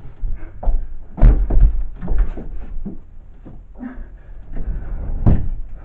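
Heavy, irregular pounding and banging on a door, a string of loud thuds, the hardest about a second in and again near the end.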